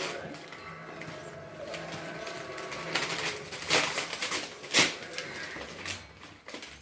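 Gift wrapping paper and packaging rustling and crinkling in several short bursts as presents are unwrapped, with faint voices in the background.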